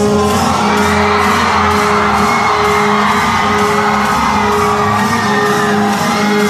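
Loud dance music playing steadily, with a held low note under a dense, busy upper layer.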